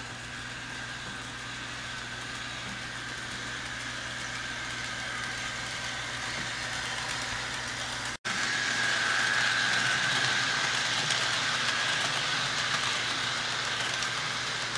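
HO scale model train running on its track: a steady motor hum with wheel noise, louder after a brief cut about eight seconds in.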